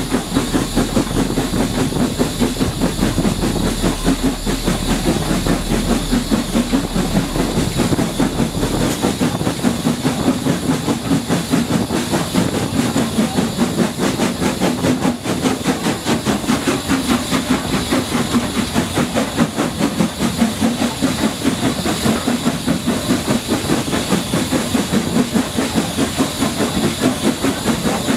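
Steam tank locomotive working along the line at speed: a steady run of rapid exhaust beats and hiss mixed with rail noise, with wind buffeting the microphone.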